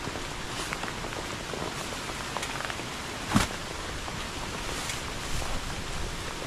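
Steady rain falling, with scattered light knocks and one dull thump about three and a half seconds in.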